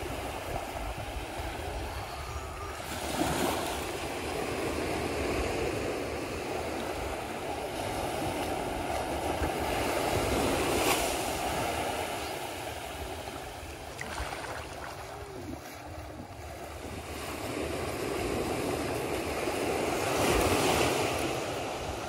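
Gentle surf washing onto a sandy shore. It swells and fades in waves, and is loudest about three, eleven and twenty seconds in.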